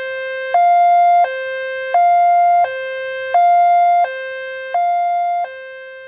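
Two-tone hi-lo emergency siren, switching back and forth between a higher and a lower note about every seven-tenths of a second, fading down near the end.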